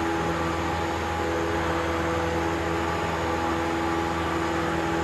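Cessna 172's piston engine and propeller running steadily in flight, heard inside the cabin as a constant drone of a few held tones over a rushing hiss.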